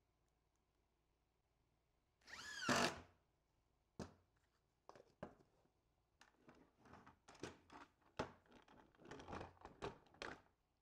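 A cordless driver whirs once, briefly, about two seconds in, its pitch rising and falling as it runs a screw through a caster plate into the wooden door. After that comes a run of knocks, clicks and scrapes as the wooden cart is handled and turned over onto its casters.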